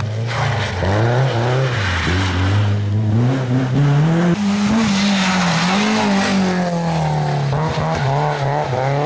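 Renault Clio rally cars driven flat out on a wet tarmac stage: the engine revs rise and fall through repeated gear changes and lifts off the throttle, with the tyres skidding as the cars slide through the corner.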